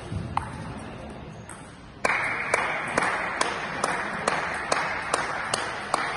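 A table tennis ball struck once just after the start. Then, from about two seconds in, a group claps in a steady rhythm, about two claps a second, over a wash of crowd noise.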